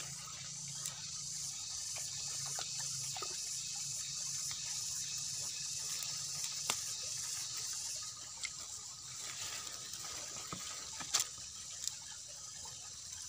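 Hands digging in a wet mud bank and pulling at plants, with faint rustles, squelches and scattered small clicks over a steady high insect hiss.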